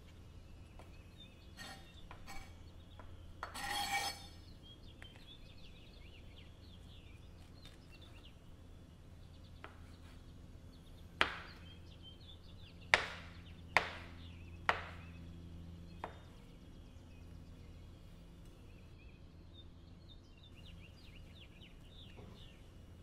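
Santoku knife cutting shiitake mushrooms on a cutting board: five sharp knocks of the blade on the board, spread over about five seconds in the middle, with a brief rustle earlier on.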